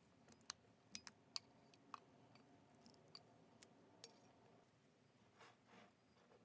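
Faint, scattered clicks and light taps of a metal pot against a ceramic bowl as ravioli in tomato sauce is tipped out into it, followed by two soft brushing sounds near the end.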